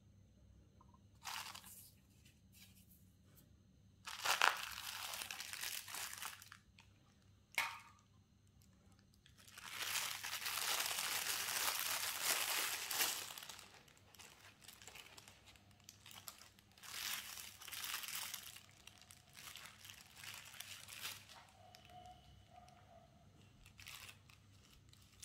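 Watch packaging crinkling as it is handled, in several separate bursts of rustling; the longest lasts about four seconds, starting about ten seconds in.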